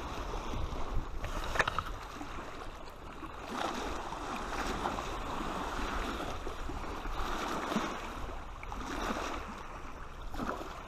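Small waves lapping and splashing against a rocky lakeshore, with wind rumbling on the microphone and a couple of light knocks.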